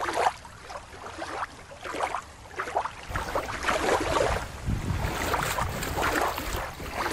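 Water sloshing and lapping in repeated surges. Wind buffets the microphone from about three seconds in.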